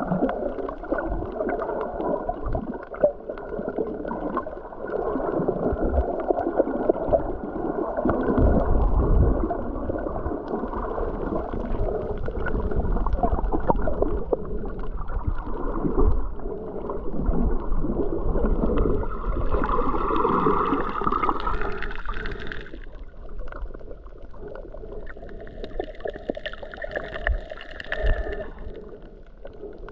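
Muffled underwater water noise picked up through a camera's waterproof housing: continuous gurgling and sloshing with low thumps. Twice in the second half a higher whine with a steady tone rises over it for about three seconds.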